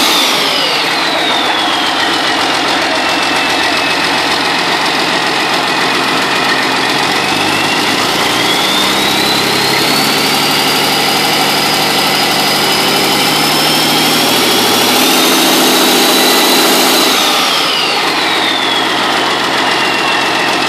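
Detroit Diesel Series 60 inline-six turbo diesel running on an engine stand, settling down toward idle in the first couple of seconds, revved up about seven seconds in and held, creeping higher, then dropping back toward idle a few seconds before the end. A high whine rises and falls with the engine speed.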